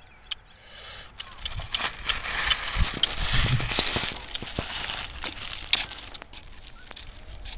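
Thin plastic bag crinkling and rustling as it is handled and carried, with many small crackles. It is loudest over the middle few seconds, then fades.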